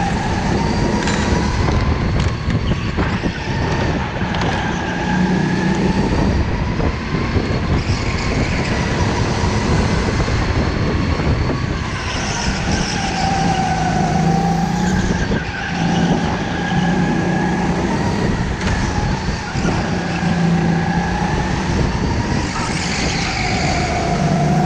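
Go-kart running flat out through a race lap, heard from on board: the engine's pitch rises and falls every few seconds as it brakes for corners and accelerates out of them, over steady wind and tyre rumble.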